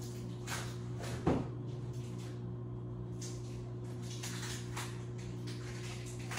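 Household room tone: a steady low hum, with faint scattered knocks and rustles from elsewhere in the house. One sharper knock comes a little over a second in, and another right at the end.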